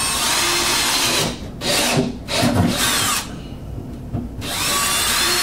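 Power drill with a 7/16-inch twist bit boring a hole through a moulded plastic panel. It runs in several bursts with short pauses, and the motor whine rises in pitch as it spins back up.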